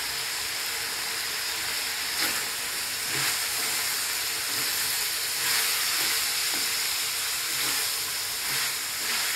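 Chicken gizzards sizzling as they sauté in a metal wok. From about two seconds in, a wooden spoon stirs them, scraping through the pan roughly once a second.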